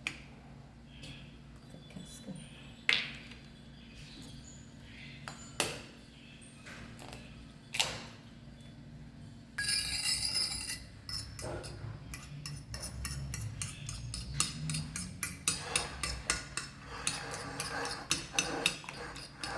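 Kitchen utensils clinking against dishes: a few separate clinks, a short hiss about halfway through, then a fast run of several taps a second, typical of food being prepared for an omelette.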